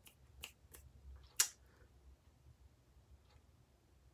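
A few small, sharp clicks in a quiet room, the loudest about a second and a half in.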